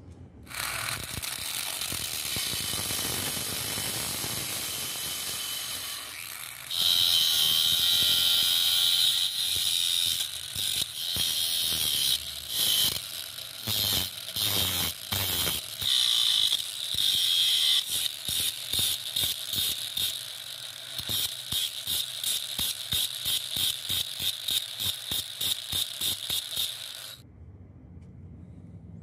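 Angle grinder running, then a threaded metal bolt held in pliers ground against its spinning disc to cut it short: a loud high grinding, broken up by repeated pauses and ending in rapid short strokes of about three a second before the grinder stops.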